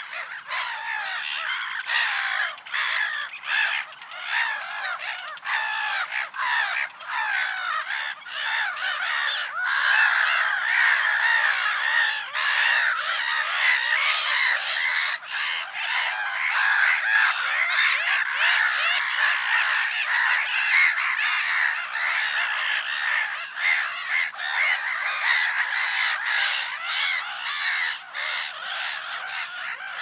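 Black-headed gull colony calling: many overlapping calls in a continuous chorus, growing louder about a third of the way in.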